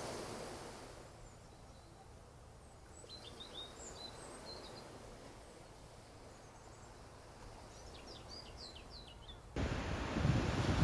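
Quiet outdoor ambience with a faint low rumble and small birds chirping: two short clusters of quick, high notes. Near the end it cuts abruptly to loud wind and surf noise.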